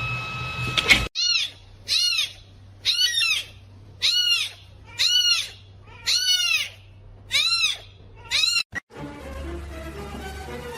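An animal calling seven times, about once a second, each call a high note that rises and falls. It is preceded by a steady tone that cuts off about a second in.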